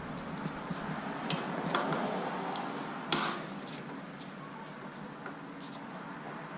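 A few light clicks and taps of metal tools and bicycle parts being handled during a hands-on adjustment, the sharpest about three seconds in, over a steady hiss.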